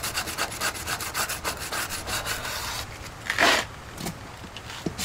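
Sandpaper on a hand sanding block rubbed back and forth over hardened fiberglass bonding material in quick, even strokes, which stop a little under three seconds in. One louder, longer scrape follows at about three and a half seconds, then a few light knocks.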